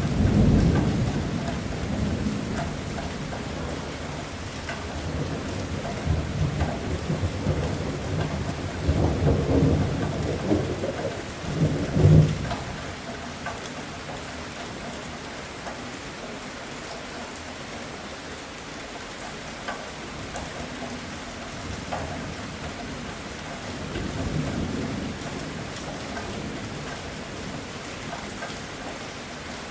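Thunderstorm: steady heavy rain with rolling thunder, the rumbling loudest in the first dozen seconds and ending in a sharp crack-like peak, then rain alone with a fainter roll of thunder later on.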